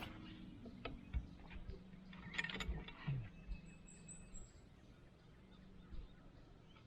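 Faint steady mechanical hum, like a small motor, with a few sharp clicks about a second in and a short rattle about two and a half seconds in.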